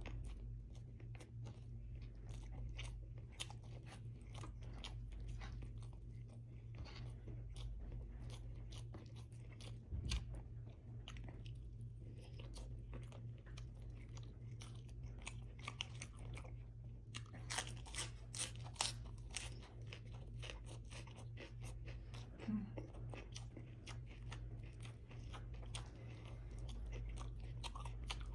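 Close-miked chewing of rice and braised beef ribs eaten by hand: a steady run of wet mouth clicks and smacks, busier about two thirds of the way through, over a steady low hum.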